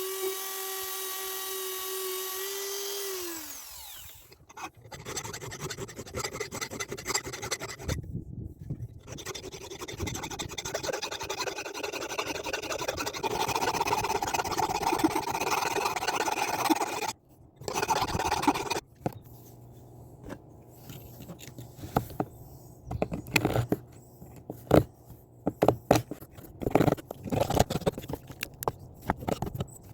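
A small power tool's motor whining steadily, then winding down about three seconds in, followed by long stretches of abrasive rubbing and scraping on the metal of an antique hatchet, broken by short pauses, with scattered knocks and scrapes near the end.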